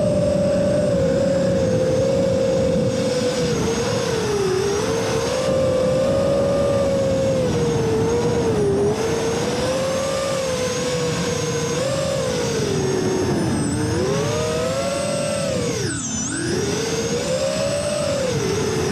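Electric motors and propellers of a small multirotor drone, heard from its onboard camera, whining at a pitch that rises and falls with the throttle. Later two motor tones drift apart, and about 16 seconds in the whine drops steeply and climbs back.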